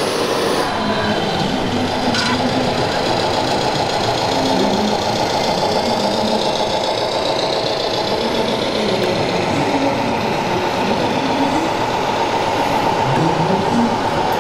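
Scale RC model trucks driving slowly, their electronic sound units playing a steady, rapid diesel-engine chatter, over the background hubbub of a crowded exhibition hall.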